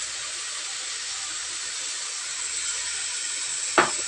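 Tofu and beech mushrooms sizzling steadily in a hot frying pan, a constant hiss. A sharp knock comes near the end, the loudest sound here.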